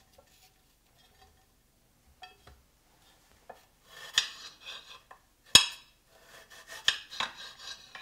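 A serrated kitchen knife slicing elephant garlic cloves on a hard plate. It starts near silent with a few faint ticks; from about four seconds in come sharp clicks of the blade striking the plate, with faint sawing strokes between.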